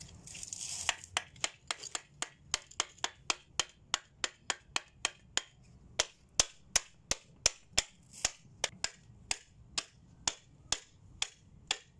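Handled wooden beating block knocked again and again onto mosaic tile sheets laid in fresh mortar, bedding them: sharp, even knocks about three a second. A short scraping rub comes just before the first knock.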